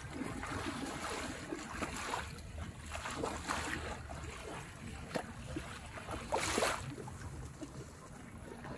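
Shallow seawater sloshing and splashing around legs wading knee-deep, with wind rumbling on the microphone. Several short splashes, the loudest about six and a half seconds in.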